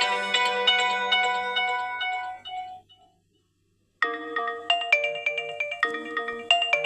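realme Note 60 phone ringtones: one bright melody of short chiming notes fades out about three seconds in, and after a second of silence the next ringtone starts abruptly with a quick melody of short notes.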